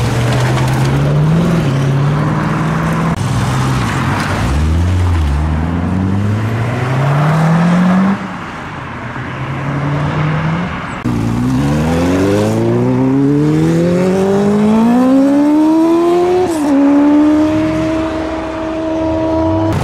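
Classic car engines pulling away. About halfway through, one car accelerates hard, its engine note climbing steadily, then dipping sharply as it shifts up a gear, and holding a steady note after the shift.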